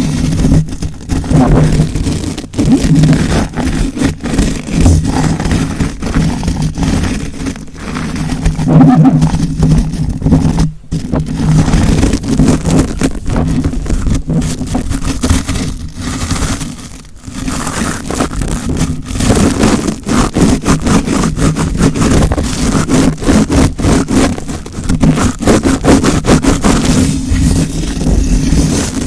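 Close-miked ASMR trigger: rapid, continuous scratching and rubbing strokes on a surface right at the microphone, pausing briefly twice.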